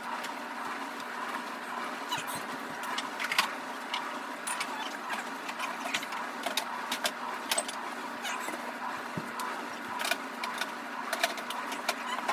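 Irregular clicks and knocks of glass jars and food containers being handled and set down on refrigerator shelves, over a steady hum.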